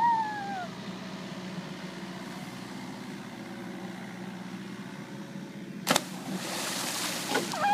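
John Deere 50D mini excavator's engine running steadily with a low hum. About six seconds in, a sharp smack followed by a rush of spray as a swinger hits the water off the rope swing; a short shout right at the start and another at the very end.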